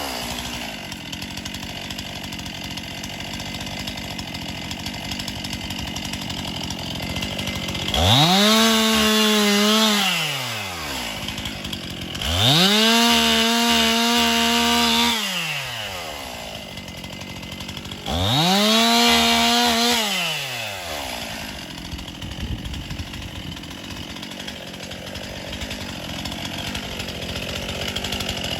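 Two-stroke chainsaw idling, then revved to full throttle three times for two to three seconds each, dropping back to idle between. It is a chainsaw cutting up a storm-felled magnolia.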